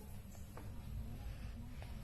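Two faint knocks of kitchen utensils, one about half a second in and one near the end, over a steady low background rumble.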